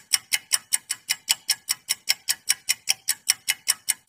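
Clock-ticking sound effect: an even, fast run of sharp ticks, about five a second, marking time passing quickly.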